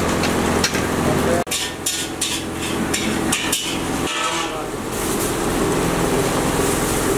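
Commercial kitchen clatter: a steady hum and hiss, with a run of sharp knocks and clinks of utensils and pots in the middle.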